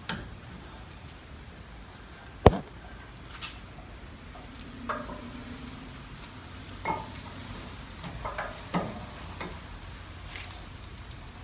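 Scattered light metallic clicks and taps of brake pads being seated into the greased slide plates of a 2012 Ford Expedition's front caliper bracket, with one sharp click about two and a half seconds in.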